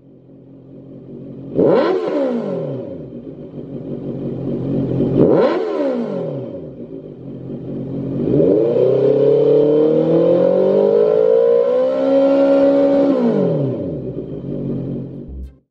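Honda CB650F's inline-four engine revved while standing, through a Lextek XP13C aftermarket silencer. There are two quick throttle blips, about two and five seconds in, each rising and falling straight back to idle. Then comes a longer rev that climbs slowly for about five seconds before dropping back to idle.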